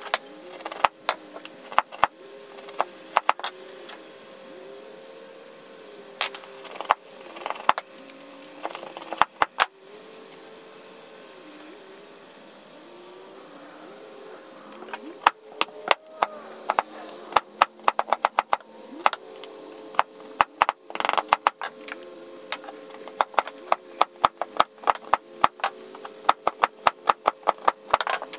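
Hatchet splitting small sticks of wood into kindling: many sharp cracks and taps, coming in quick runs over the second half.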